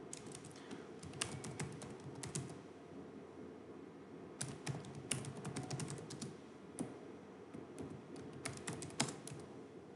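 Computer keyboard typing: several quick runs of keystrokes separated by short pauses, over a steady low hiss.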